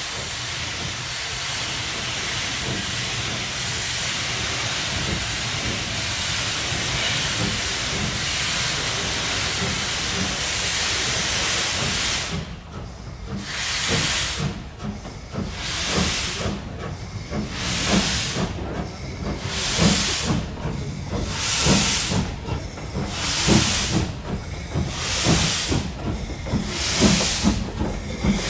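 Steam locomotive with a steady hiss of escaping steam, then starting away: about twelve seconds in, exhaust beats begin, slow at first and gradually quickening, each with a burst of hissing steam.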